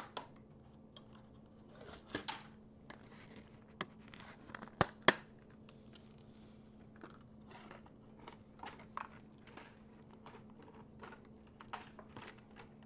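Plastic packaging of a RAM memory kit being opened and handled: intermittent crinkling and tearing with small clicks and snaps, two sharp clicks about five seconds in standing out, over a faint steady hum.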